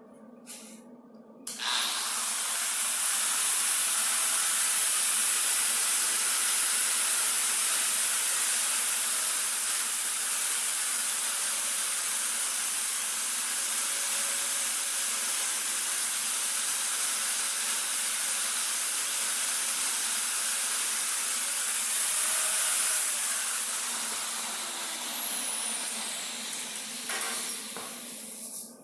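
Grinder working on the steel hinge spacer: a loud, steady, harsh hiss that starts suddenly about a second and a half in, then fades near the end with a falling pitch as the tool winds down.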